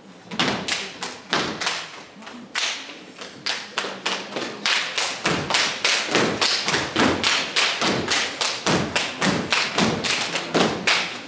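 Step team stepping: boots stomping on the stage floor together with hand claps and body slaps, in a quick, steady rhythm.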